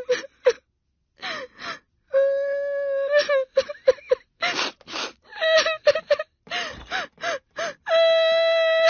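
A teenage girl's voice crying: short gasping sobs broken by two long drawn-out wails, one about two seconds in and another near the end.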